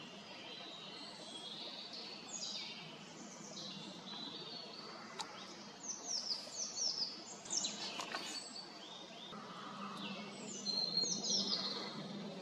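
Woodland songbird singing: quick phrases of short high notes, each sliding down in pitch, repeated several times over a faint steady hiss.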